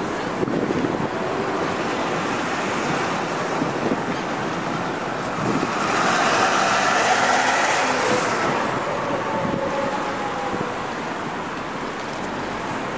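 Road traffic noise from cars passing on the parkway: a steady rush of tyres and engines that swells as a vehicle goes by about six to eight seconds in, with a faint tone that falls in pitch as it moves away.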